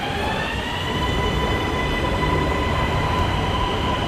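Electric metro train beside a station platform, its motors giving a whine that rises in pitch over the first second and then holds steady over a running rumble.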